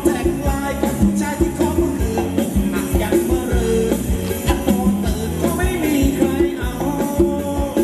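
Live Thai ramwong dance band playing an upbeat song with a steady, evenly spaced drum beat.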